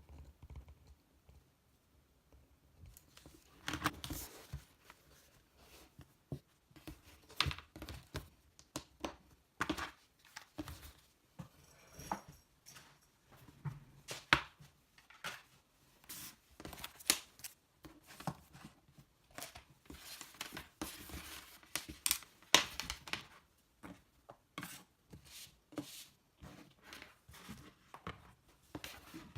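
Paper or plastic wrapping being torn and crinkled by hand: a long run of irregular rips and crackling rustles.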